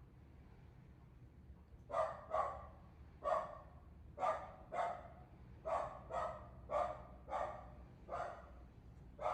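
A dog barking repeatedly, about ten short sharp barks starting about two seconds in, spaced roughly half a second to a second apart.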